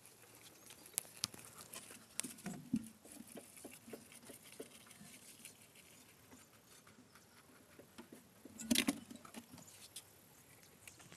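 Rabbit nibbling fresh green leaves: faint, irregular crisp chewing clicks and leaf rustles, with a louder burst of rustling about two-thirds of the way in.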